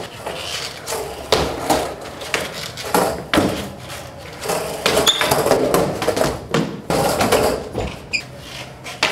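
Skateboard on a tiled floor: wheels rolling, with repeated sharp clacks and thuds as the board strikes the floor during tricks.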